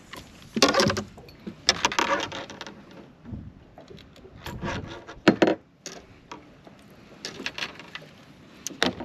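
Irregular clattering and light jangling from a landing net and a crankbait's treble hooks being handled while a largemouth bass is worked free of the net, in several short bursts of knocks and rattles.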